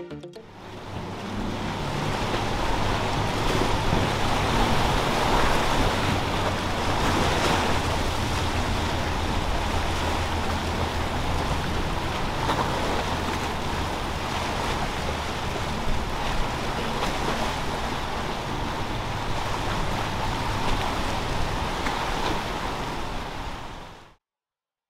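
Boat engines running over the wash of breaking waves and wind, with a steady low engine hum under the noise. The sound cuts off suddenly near the end.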